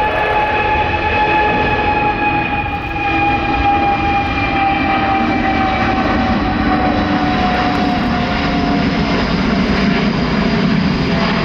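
Airbus A330-800neo's Rolls-Royce Trent 7000 turbofans at takeoff power: a loud, steady jet roar with whining fan tones that slowly fall in pitch as the airliner passes and climbs away, and a deeper rumble building in the second half.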